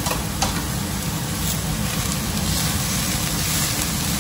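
Shredded cabbage, carrot and capsicum sizzling in a wok over a steady low rumble, with two short spatula knocks against the wok near the start.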